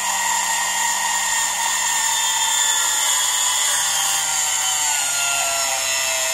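12 V DC motor turning an ungreased 6 mm threaded rod through a shaft coupler, driving the slider carriage with a steady high whine. The motor strains a little, which the maker puts down to the rod having no grease.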